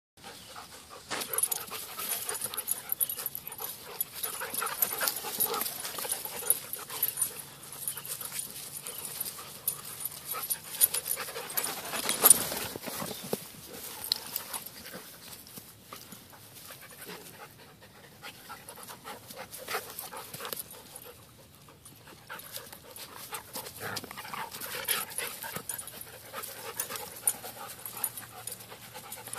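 Two dogs play-fighting rough: panting and scuffling, with many short sharp sounds, the loudest about twelve seconds in, and a quieter lull a little past the middle.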